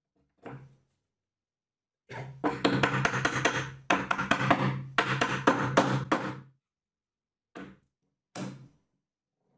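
A mallet tapping rapidly on a plywood push-block base, about five blows a second for some four seconds, seating the handle's dowels into the base. A single knock comes just before, and two short knocks near the end.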